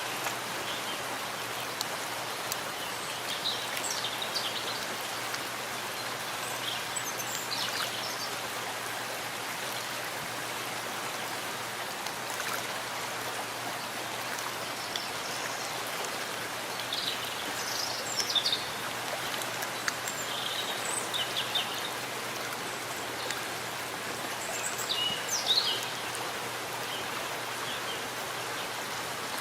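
Steady rain falling in a forest, a constant even patter, with a few short high bird chirps every several seconds.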